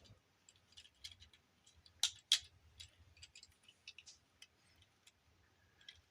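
Small plastic clicks and taps from a Transformers action figure's joints and parts being worked by hand, with two sharper clicks about two seconds in.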